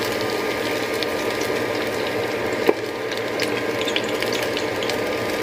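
Minced garlic sizzling and crackling steadily in hot cooking oil in a wok as it sautés, with one sharp knock about halfway through.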